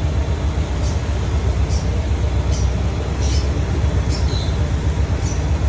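Toyota Starlet KP61's four-cylinder engine idling steadily after a long time unused, with a few short high chirps over it.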